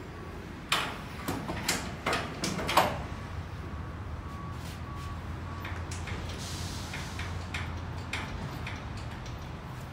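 Metal clanking and rattling from a rolling metal shelving unit being handled: a quick run of sharp knocks in the first three seconds, then lighter scattered clicks.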